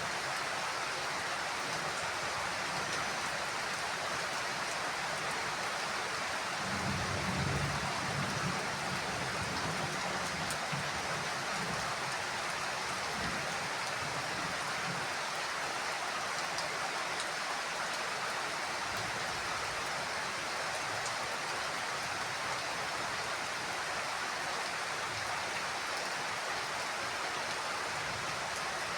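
Heavy rain falling steadily on a house roof, with a low rumble of thunder swelling about seven seconds in and a fainter one a few seconds later.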